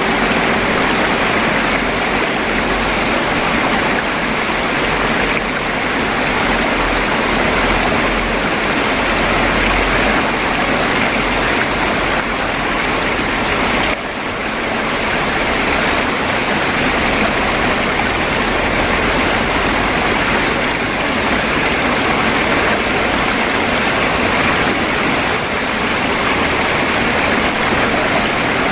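Babbling water of a stream flowing steadily, with a brief dip in level about halfway through.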